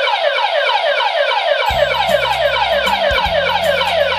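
Earthquake detector's built-in alarm going off after the table it sits on is jolted, the device's sign that it has sensed shaking. It sounds a rapid, repeating falling siren tone, about four sweeps a second. A low music bed comes in under it about two seconds in.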